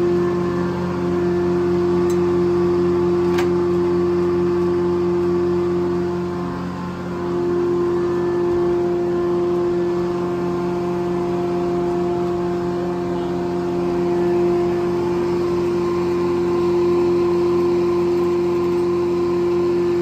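A circle sawmill running steadily with the big circular blade spinning free, not cutting. Its power unit and blade give a constant, even hum, with a brief dip about seven seconds in.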